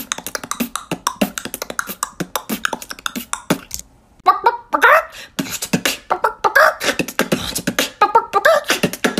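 A girl beatboxing animal emojis, a horse and then a chicken. A fast run of mouth clicks and beats comes first. After a short break about four seconds in, pitched vocal sounds are worked into the beat.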